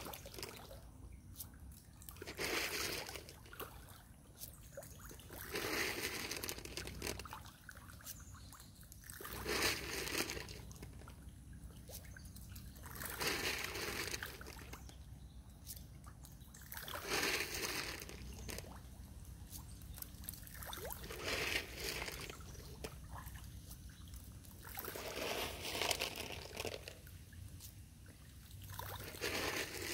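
A boil of catfish rolling and splashing at the water's surface. The water sloshes in surges about every four seconds.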